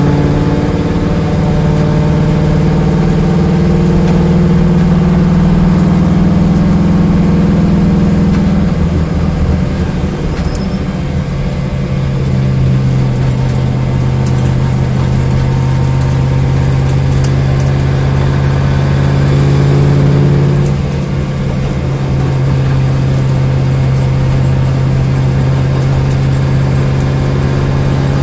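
Corvette engine idling with a misfire. The idle speed is higher at first, settles lower about nine seconds in, and briefly rises again near twenty seconds.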